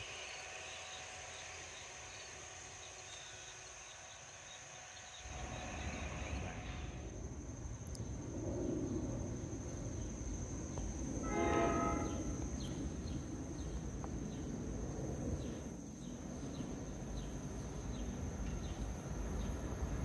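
NJ Transit ALP-46 electric locomotive #4603's restricted Nathan K5LA horn sounding one short chord-like blast of about a second, about halfway through. Under it runs a steady low rumble from the locomotive on the track, starting about five seconds in.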